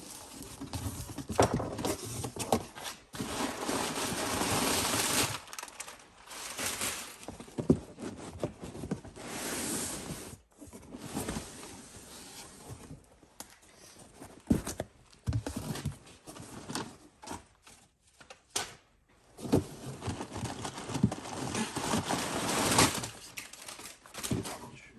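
Cardboard shipping box being unpacked by hand: packing material crinkling and rustling in long stretches, broken by scattered knocks and thumps.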